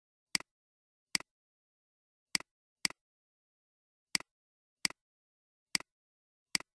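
Computer mouse clicks, eight at uneven gaps of about half a second to a second, each a sharp click followed by a softer one, with nothing heard between them. Each click places an anchor point of a vector path being drawn.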